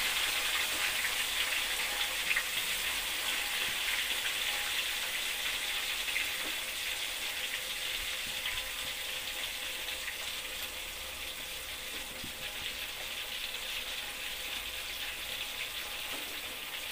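Hot oil sizzling steadily in a steel wok as spice-marinated meat pieces fry, with small crackles and pops. The sizzle slowly dies down.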